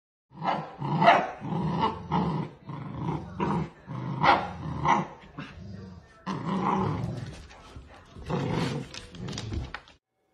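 Golden retrievers barking in a rapid run of short barks, about two a second, mixed with growling, with longer drawn-out sounds in the second half.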